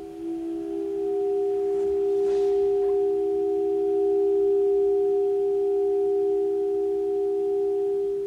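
Saxophone holding soft, smooth, nearly pure notes, layered into a steady chord of two or three held pitches with live-recorded saxophone played back over loudspeakers.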